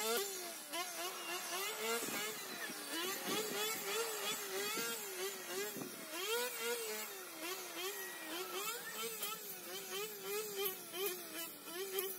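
Small grass-cutting power tool's motor running at high speed, its whining pitch rising and falling about twice a second as it takes and sheds the load of the grass.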